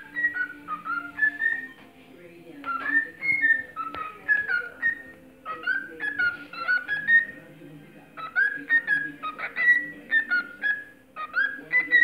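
Male cockatiel singing a whistled courtship serenade: clear rising and falling whistles strung into phrases, with short pauses between them.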